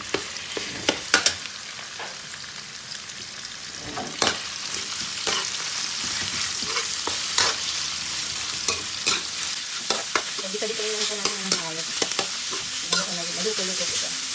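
Ground pork frying in oil in a steel wok, a steady sizzle that grows louder about four seconds in, with the sharp clinks and scrapes of a metal spatula stirring against the wok.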